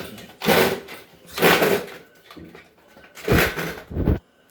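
Four short scraping, rustling noises of parts and metal being handled and shifted inside a front-load washer cabinet during a damper shock replacement.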